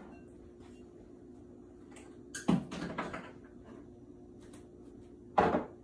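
Two loud knocks in a kitchen about three seconds apart, the first followed by a short clatter, as things are handled and set down or a cupboard door is shut.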